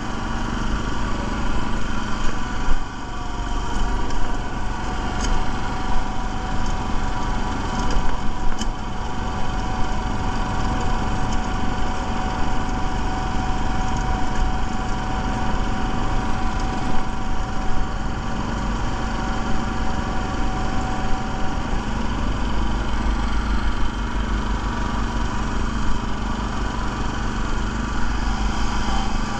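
Small gasoline engine on a walk-behind airless paint line striper, running steadily at a constant speed.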